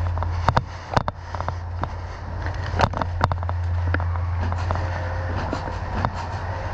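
Scattered, irregular sharp snaps of airsoft guns firing and BBs striking, over a steady low rumble.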